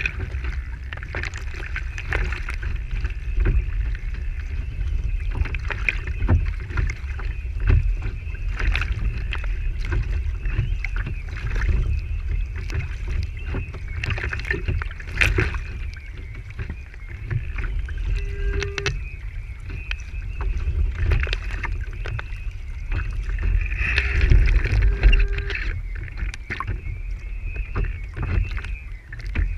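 Water rushing and slapping against the hull of a Lintel IOM radio-controlled sailing yacht as it heels through choppy water, heard from a camera on its deck, with a continuous low rumble of wind buffeting and many short splashes.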